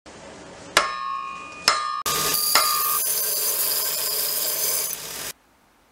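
Two hammer blows on hot steel on an anvil, each leaving a clear ring. About two seconds in, a Metabo BS 175 belt sander starts grinding a steel blade with a loud, steady hiss, and one more ringing blow sounds over it. The grinding cuts off suddenly near the end.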